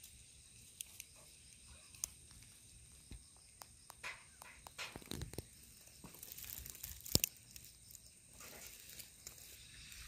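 Faint scattered rustling and crackling of dry pine needles and grass, with a few sharp clicks; the loudest click comes about seven seconds in.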